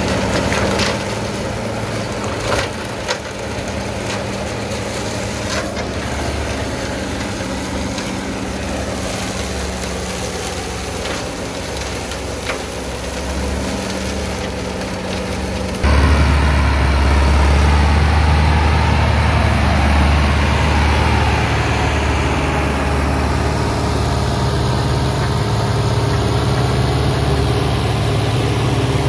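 Ursus C-385 tractor's diesel engine running steadily, driving an Orkan 2 flail mower through grass, with a few sharp clicks in the first seconds. About halfway through the sound jumps abruptly to a louder, deeper engine sound.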